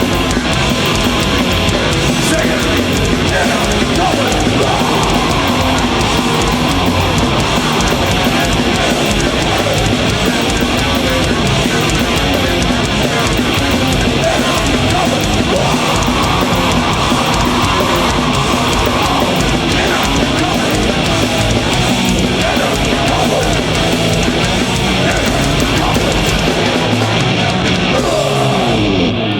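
Live heavy metal band playing loud, with distorted electric guitars and a pounding drum kit; the song stops right at the end.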